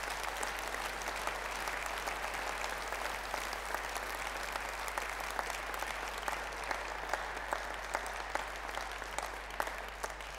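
Audience applauding: a dense, steady patter of many hands clapping that thins out and dies down near the end.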